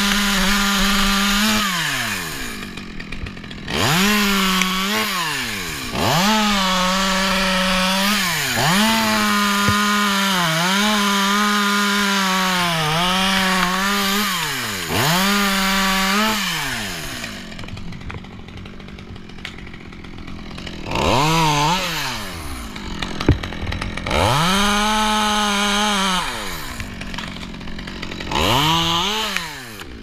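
Stihl top-handle two-stroke chainsaw cutting sycamore wood, run at full throttle in repeated stretches of a few seconds. Its pitch dips as the chain bogs into the cut and drops back between cuts. The engine eases off a little past halfway, then is blipped up again in a few shorter bursts near the end.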